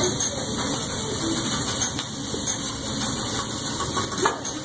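Food sizzling on a teppanyaki flat-top griddle as a steady noise, with a few light taps of a metal spatula on the steel, the clearest about four seconds in.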